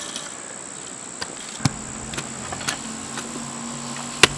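Insects, crickets, chirring in a steady high-pitched drone, with a few sharp clicks, the loudest about four seconds in. A low hum comes in about a second and a half in.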